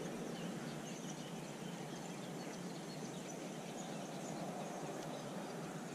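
Steady, faint outdoor background noise with a few faint bird chirps.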